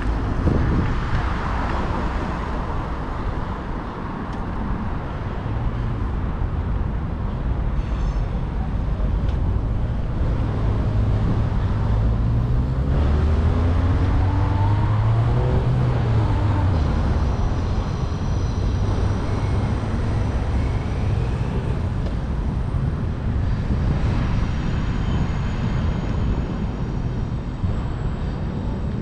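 Steady street traffic noise, with one vehicle engine rising and then falling in pitch about halfway through.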